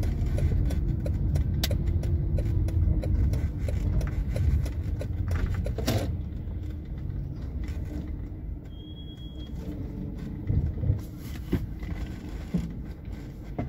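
Car engine and road rumble heard inside the cabin as the car rolls slowly forward and comes to a stop, getting quieter about eight seconds in, with small rattles and clicks. A brief high beep sounds about nine seconds in.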